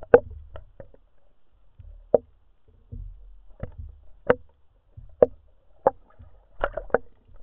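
Sharp underwater clicks, one every half second to a second, with a quick run of several near the end: a spearfisher's attracting calls, made to draw a bluefish in close.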